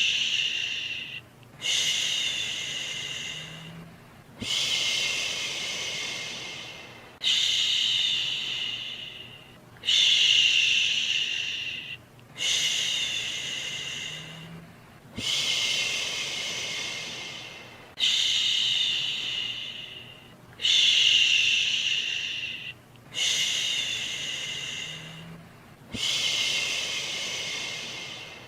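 A person shushing to soothe a baby: a long hissing "shhh" repeated about every two and a half to three seconds, each one starting sharply and then fading away.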